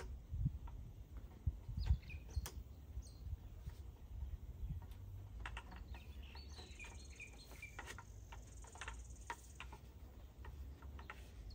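Birds chirping in the background, with a few light knocks and clatters as a bamboo post and spout are handled and fitted together; the loudest knock comes about two seconds in.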